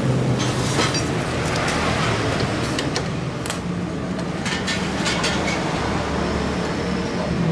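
A steady hum of road traffic in the background, with scattered light clicks and taps of hand tools undoing a bolt and screw.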